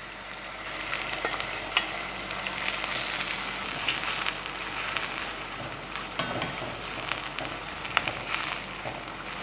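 Boneless chicken thigh pieces sizzling as they sear in butter and coconut oil in a wok, browning to a golden colour. There are scattered sharp pops and clicks as the pieces are turned with tongs.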